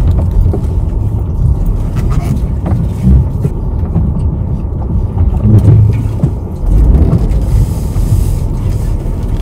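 A car being driven, its engine and tyres making a steady low rumble.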